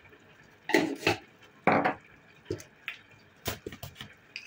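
A series of short knocks and clicks, about ten over four seconds with the loudest two near the first and second seconds: small kitchen containers and utensils being handled while raw chicken pieces are seasoned.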